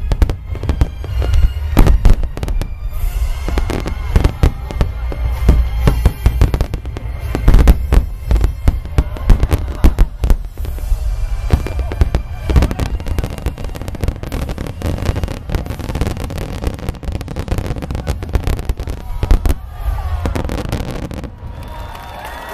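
Rapid barrage of aerial firework shells bursting in quick, overlapping succession: deep booms with crackle between them. The bursts thin out near the end.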